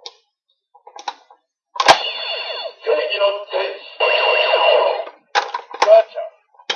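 Goseiger Tensouder toy morpher playing a card's sounds through its small, tinny speaker. A few light clicks come first, then a sharp hit about two seconds in opens about three seconds of electronic sound effect and voice call. Short bursts and a click follow near the end.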